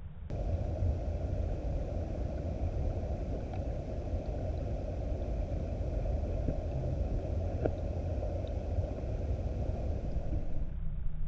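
Fast river current heard underwater through a camera housing: a steady low rumble with a hiss over it and a few faint clicks, starting just after the beginning and stopping shortly before the end.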